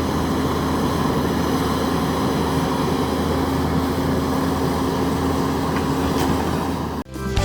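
An engine running steadily at a constant speed, cut off abruptly near the end.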